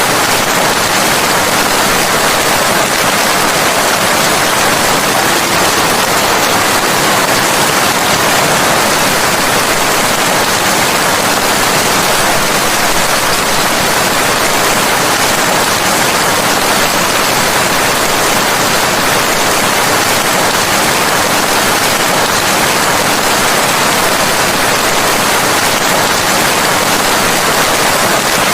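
Steady, loud rain: a dense, even hiss of rainfall with no distinct drops or thunder.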